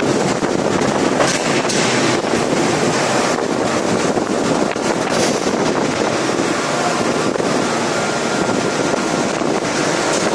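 Steady, loud industrial noise from a 5000-ton hydraulic open-die forging press at work, with a few faint knocks.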